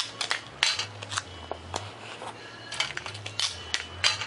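Tape and a paper template being handled as the template is taped onto foam board: a run of scattered clicks and short rustles.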